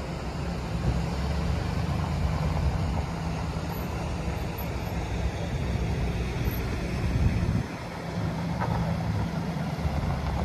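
A 2011 Chevrolet Silverado pickup's 4.3-litre V6 gas engine running as the truck is driven slowly on gravel, a steady low engine drone that dips briefly about three quarters of the way in.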